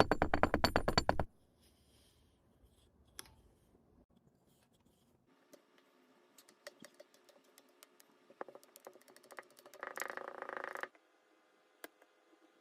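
Kinetic sand being squished and crumbled: a loud, rapid crackling crunch for about the first second, then faint scattered crackles, and another louder crunch about ten seconds in.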